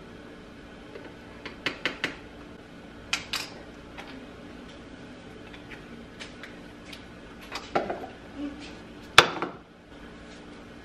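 Light clinks and clicks of a metal measuring spoon and small bottles being handled over a blender jar, with a sharper click about nine seconds in.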